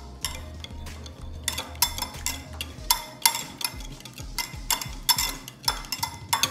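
Wire whisk beating cream cheese and milk in a glass bowl. Its wires click and scrape against the glass about three times a second, starting about a second and a half in.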